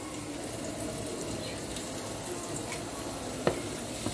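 Hot spiced water in a large aluminium pot, a steady watery hiss as soaked basmati rice is tipped in for parboiling, with a light knock about three and a half seconds in.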